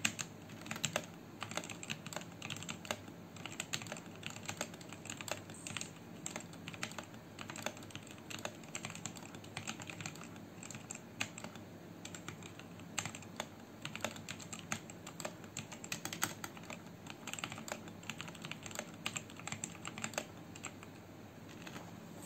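Typing on a Rexus mechanical keyboard with foam fitted underneath: a steady run of irregular key clacks, several a second. The foam is meant to cut the keyboard's hollow sound and rattle.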